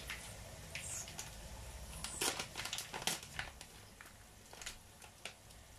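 Dried fish frying in hot oil in a pan, the oil crackling and popping irregularly, thickest about two to three seconds in, over a low steady hum.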